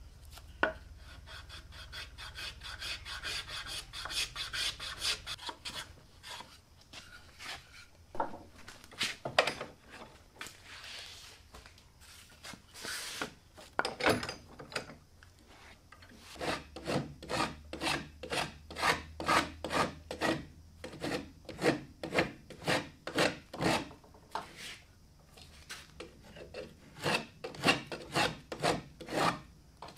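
Wood rasp scraping a cypress toy canoe hull, rhythmic back-and-forth strokes. A quick dense run of strokes comes first, then separate strokes that settle to about two a second.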